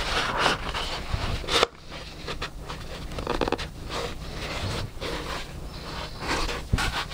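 Fabric rustling and rubbing as a baseball cap with a small clip-on action camera is handled and pulled onto a head, with a sharper scrape about a second and a half in.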